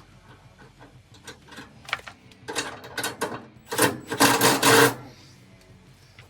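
Power tool running in several short bursts, tightening suspension bolts; the last burst is the loudest, about a second long, and cuts off suddenly.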